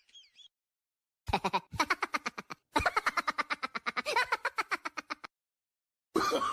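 Laughing sound effect: a rapid cackling laugh of quick "ha" pulses, several a second, in two runs with a short break.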